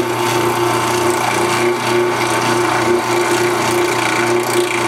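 Ryobi 10-inch drill press's electric motor running steadily with no belt fitted, so it turns unloaded: a steady hum with a higher whine over it.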